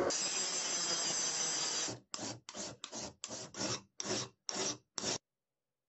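Twist drill bit on a drill press cutting into a steel plate, a steady grinding for about two seconds. Then a flat hand file rasps across steel in about eight short strokes, stopping suddenly just after five seconds.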